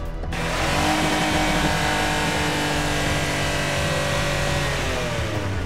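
Monster truck engine sound effect: it revs up in the first second, runs at a steady pitch, and winds down near the end.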